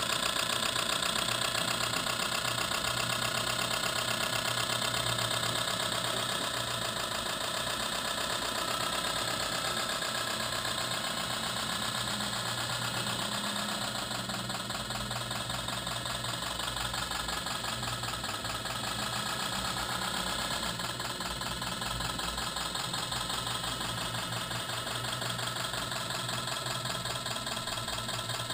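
Simulated diesel engine sound from an RC model's sound system, chugging steadily with an even rhythm and dropping a little in level after about six seconds.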